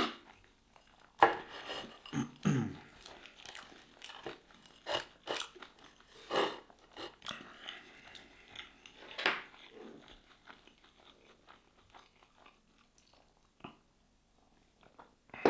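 Close-miked eating: crunchy bites and chewing at irregular intervals, with a few louder crunches.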